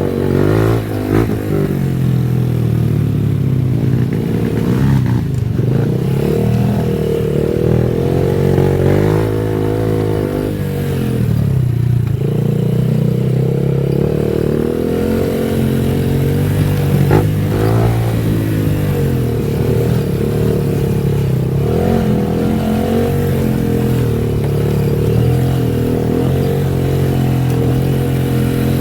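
Honda Wave 110i's single-cylinder four-stroke engine running under way, its pitch rising and falling again and again as the motorcycle speeds up and slows.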